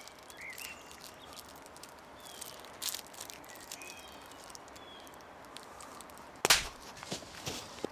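One hard, sharp slap to the face about six and a half seconds in, against a quiet woodland background with birds chirping.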